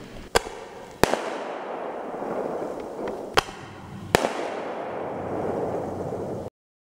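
1.5 inch festival ball firework shells going off: four sharp bangs in two pairs, each pair about two-thirds of a second apart, with a hissing crackle between and after them. The sound cuts off suddenly near the end.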